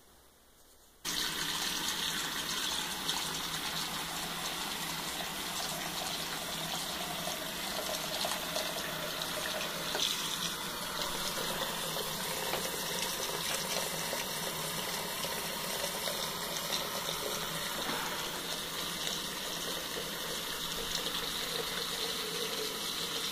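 Bathroom sink faucet running in a steady stream, turned on about a second in.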